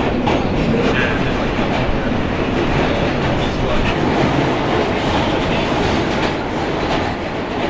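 Subway train running at speed, heard from inside a car: a steady loud rumble and rattle of wheels on the track, with light clicks in the second half.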